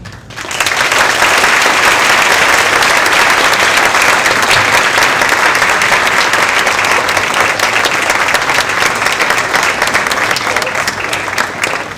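Audience clapping hands, applause that starts about half a second in, holds steady, and tapers off near the end.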